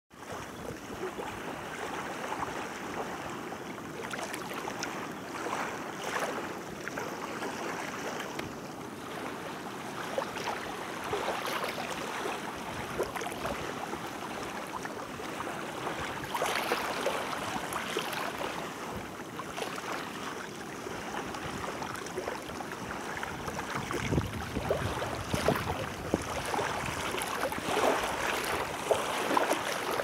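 Small waves lapping and washing onto a sandy shore, a steady splashing wash that swells and eases irregularly. In the last few seconds wind buffets the microphone with a low rumble.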